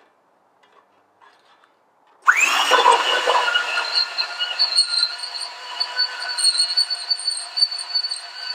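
Ryobi 18-volt ONE+ cordless portable band saw switching on about two seconds in, its motor whining up to speed, then the blade cutting a rusty metal round bar with a steady high squeal over the motor's whir. A few faint clicks come before it starts.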